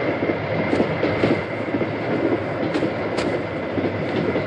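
Steady rumble and rattle of a moving train heard from inside a compartment, with a few faint clicks.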